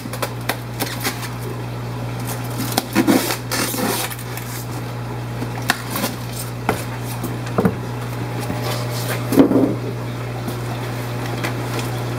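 Steady low hum of fish-room equipment, with scattered light clicks and knocks from items being handled, the loudest about 3 and 9.5 seconds in.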